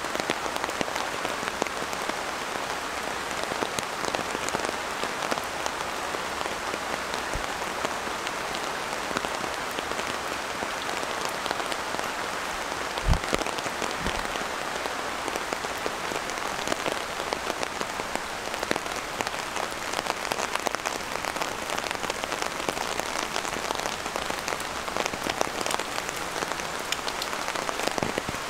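Steady rain falling, an even hiss dotted with many separate drop hits, and one brief low thump about halfway through.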